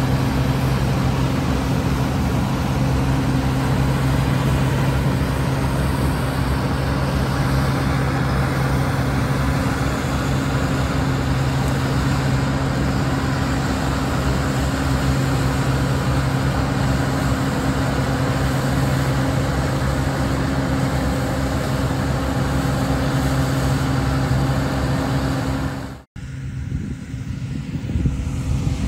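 Bizon Rekord Z058 combine harvester at work in the field: its diesel engine running under steady load with the rushing noise of the cutting and threshing machinery. About three seconds before the end the sound cuts off abruptly and a quieter background follows.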